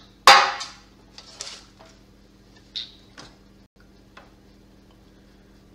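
A loud knock of kitchenware set down on a stone worktop, ringing briefly, then a few lighter knocks and clinks over the next few seconds.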